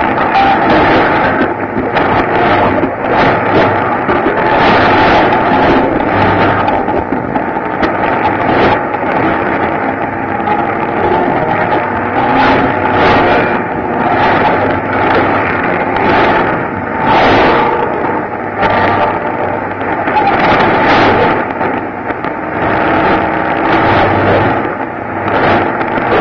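Shortwave AM broadcast from Radio Cairo on 12005 kHz heard through a receiver: a voice talking through static, its level rising and falling with fading, with a steady tone running under it.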